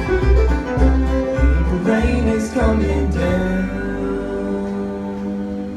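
Live bluegrass band playing the closing bars of a song on strings and bass, with a steady beat of bass notes that gives way about three seconds in to a final chord held to the end.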